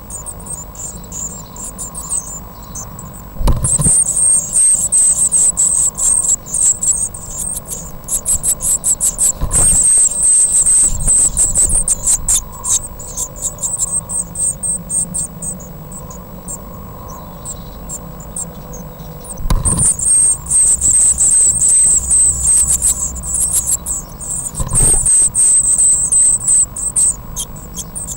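Blue tit nestlings begging in a nest box: rapid, high-pitched cheeping in several bouts of a few seconds each. Each bout starts with a sharp thump.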